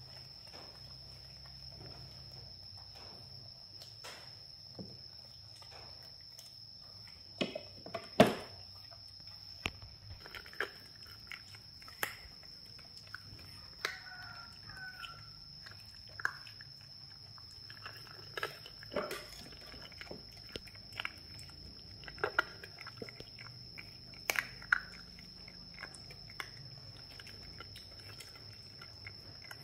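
Pets eating: irregular crunches, clicks and knocks of chewing, including a dog crunching dry kibble from a stainless-steel bowl. One louder knock comes about eight seconds in.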